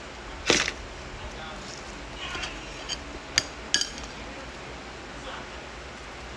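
Crisp lettuce leaves crunching as they are pulled apart, loudest about half a second in. A little past three seconds in, a metal spoon clinks a few times against a dish.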